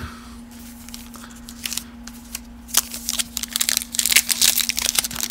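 Foil wrapper of a 2020 Donruss baseball card pack being torn open by hand. After a few light clicks, a dense crinkling and tearing of the foil starts about three seconds in and grows louder, over a faint steady hum.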